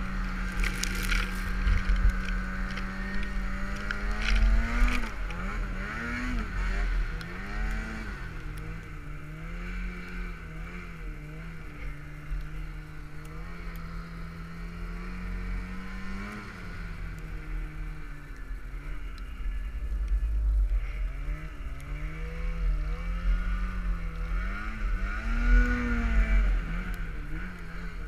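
Snowmobile engine running hard through deep powder snow, its pitch rising and falling again and again as the throttle is worked.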